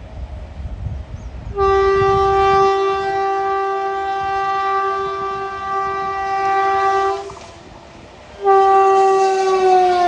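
WAP7 electric locomotive's horn sounding two long blasts at speed, the second falling in pitch near the end as the train passes. A low rumble comes before the first blast.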